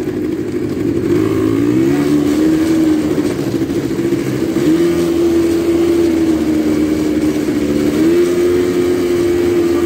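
Quad bike (ATV) engine running, heard from on board while riding. Its steady note dips about two seconds in and steps back up twice later as the throttle changes.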